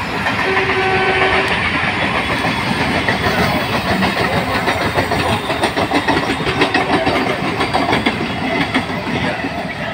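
Electric trains running side by side on parallel tracks, heard from the open window of one of them: a loud, steady rolling noise with fast clickety-clack as the wheels cross the rail joints.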